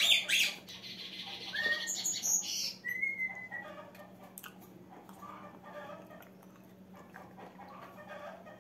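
Caged pet songbird chirping: sharp calls right at the start, a few short whistled notes within the first three seconds, then faint scattered chirps.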